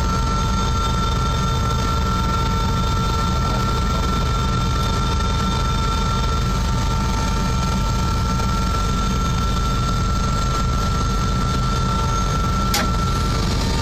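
Helicopter's turbine engine and rotor running steadily on the ground, heard from inside the cabin: a steady whine over a low rumble. A single sharp click comes near the end.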